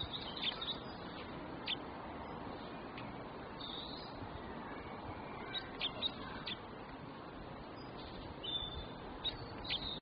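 Small garden songbirds chirping: short, high single chirps scattered irregularly, a few close together about six seconds in and again near the end, over a steady background hiss.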